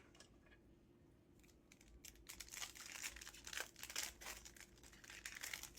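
Foil trading card pack being torn open and crinkled, a dense crackling of wrapper that starts about two seconds in and carries on until near the end.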